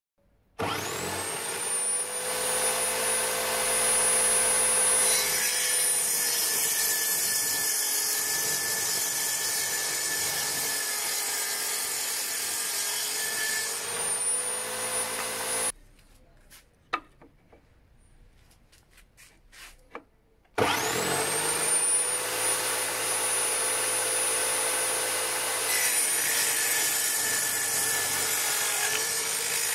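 Homemade table saw driven by an electric drill, its 160 mm circular blade spinning up with a rising whine and cutting wood. About halfway through the sound breaks off suddenly for a few seconds, leaving only a few light knocks, then the saw spins up again and cuts more wood.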